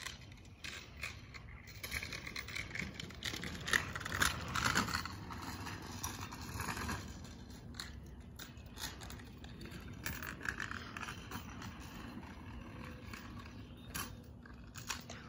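Small wheels of a three-wheeled swing scooter rolling and scraping on an asphalt driveway, with scattered clicks and rattles. It is louder for a few seconds early in the ride and again about ten seconds in.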